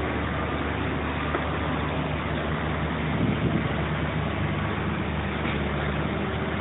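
A motor vehicle engine idling steadily, a low even drone with no change in speed.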